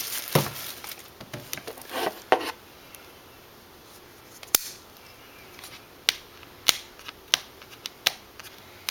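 Cardboard and plastic packaging being opened by hand: a couple of seconds of crinkling and rustling, then a run of separate sharp clicks and snaps.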